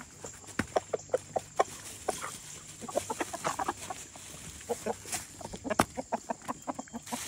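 A flock of backyard chickens clucking in many short, quick notes as they crowd round and peck at watermelon rind.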